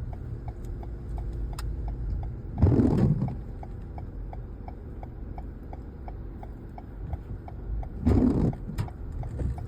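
Car turn-signal clicking steadily, about three ticks a second, over the low rumble of a car interior. Two louder rushes of noise break in about three seconds in and again near the end.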